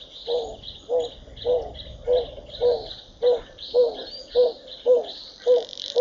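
Wild animal call: a short low note repeated evenly, a little under two times a second, over a continuous high-pitched background chorus.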